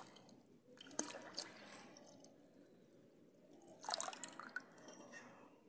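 Faint dripping and small liquid sounds from a large kadhai of milk heating for khoya, with a few short sharp clicks about a second in and around four seconds.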